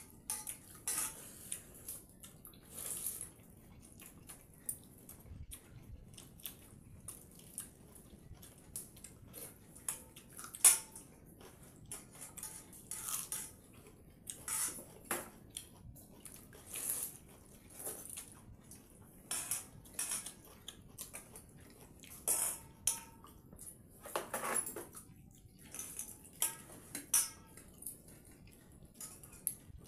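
Hands mixing and scooping watery soaked rice (pakhala bhata) in stainless steel bowls: irregular light clinks of fingers against the steel with wet squelching of the rice, and one sharper clink about ten and a half seconds in.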